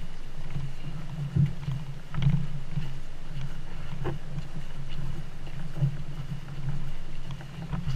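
A canoe carried overturned on the shoulders along a trail: a steady low rumble under the hull that swells and eases with the carriers' strides, and a few sharp knocks.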